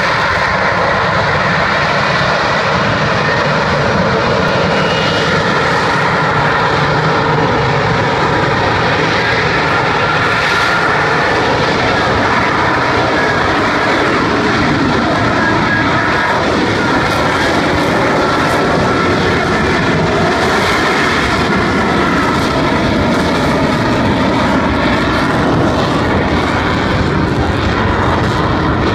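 Jet noise from an F-35B fighter hovering on jet thrust with its lift fan, loud and steady, with faint high tones running through it.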